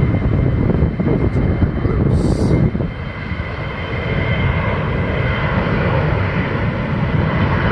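Delta regional jet's twin GE CF34 turbofan engines spooled up to takeoff power: a loud, steady rumble with a thin, steady high whine, easing slightly about three seconds in and then holding.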